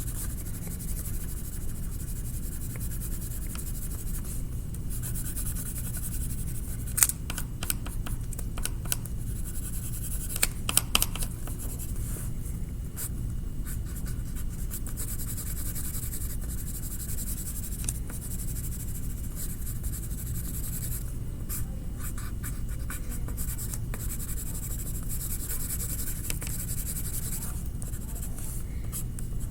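Colouring strokes on paper, scratchy and irregular, with clusters of quicker strokes about a quarter, a third and three quarters of the way through, over a steady low hum.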